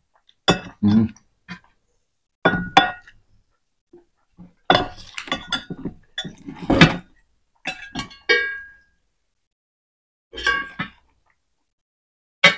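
Metal spoon clinking and scraping against stainless steel serving bowls and plates in several separate bursts of taps. One tap, about two-thirds of the way through, leaves a short ringing tone.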